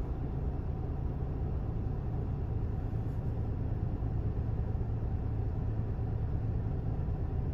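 Semi-truck's diesel engine idling with a steady low rumble while the truck stands still.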